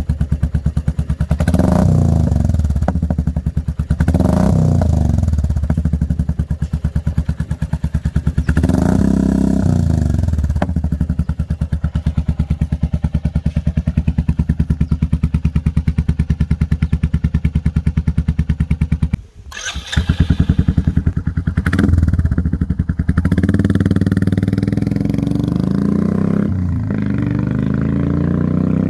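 Royal Enfield Classic 350's 349 cc single-cylinder engine running through an aftermarket KP Performance single-barrel stainless silencer, with a slightly heavy exhaust note: it idles with a steady beat and is blipped up and back down several times in the first ten seconds. After a sudden break about two-thirds in, the bike is heard ridden and accelerating, its pitch rising through the revs near the end.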